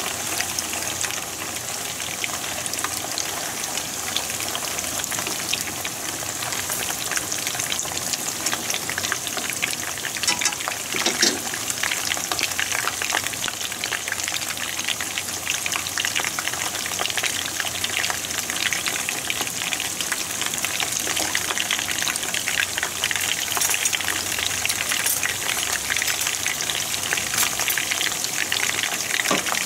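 Karaage pieces deep-frying in a wok of hot oil: a steady crackling sizzle, with a few sharper pops about ten to eleven seconds in.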